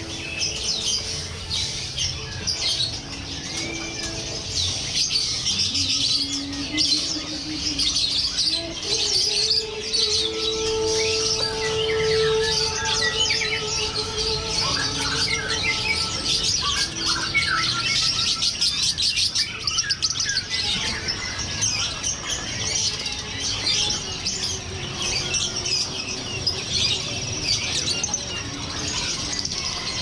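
Dense chorus of many caged songbirds chirping and singing at once, with overlapping rapid tweets and calls, a few lower drawn-out notes among them in the middle stretch.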